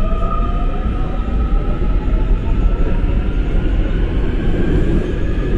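Interior running noise of a Seoul Metro Line 2 subway car in motion: a steady rumble of wheels on rail with a faint whine that slowly shifts in pitch.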